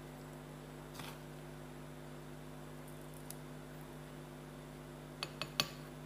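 A metal spoon spreading shredded chicken floss (abon) over a slice of bread, with a faint scrape about a second in and three quick light clicks about five seconds in. A steady low hum runs under it.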